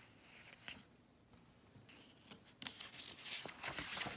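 A picture-book page being handled and turned: paper rustling and brushing, with small clicks. It starts about two and a half seconds in after a near-quiet start and grows louder toward the end.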